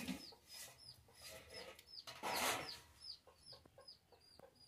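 Domestic chickens: high, falling peeps repeating a few times a second, with louder clucks in between. The loudest cluck comes about two and a half seconds in.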